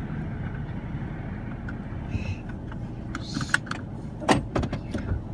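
Garbage truck's engine running with a steady low rumble, with a quick series of metallic clanks and knocks a few seconds in, the loudest about four seconds in.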